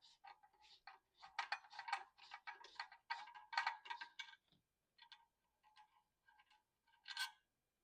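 Quick runs of small metallic clicks and clinks from hand tools and small metal parts on a pinball mechanism being unfastened. The clicks come thick for the first four seconds or so, then thin out to a few scattered ticks, with one louder clink near the end.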